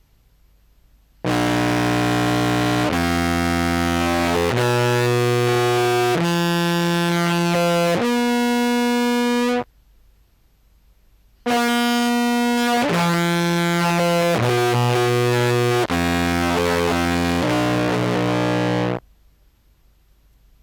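Contrabass clarinet played through fuzz distortion pedals: two phrases of long held notes, about five notes each and roughly a second and a half per note, moving up and down in pitch. Each phrase cuts off abruptly.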